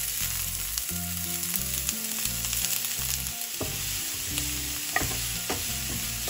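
Freshly added chopped onion sizzling in hot oil in a frying pan while a wooden spatula stirs it. In the second half the spatula knocks and scrapes against the pan a few times.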